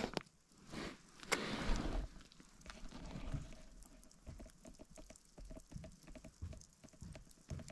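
Tent fabric rustling twice in the first two seconds, then light, irregular pattering of falling snow on the tent.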